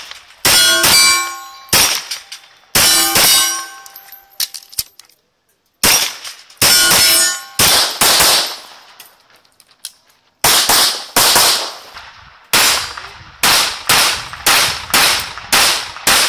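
Pistol shots fired in strings, several followed by the ringing clang of hit steel plates. Two pauses break the shooting, and near the end comes a quicker run of about two shots a second.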